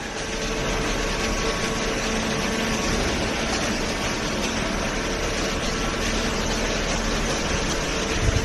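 Hydraulic cardboard baler running: a steady mechanical hum with an even hiss over it.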